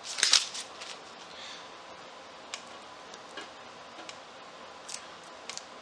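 Blue painter's tape being handled and pulled with gloved hands: a short crackly rip near the start, then a few scattered light ticks and clicks.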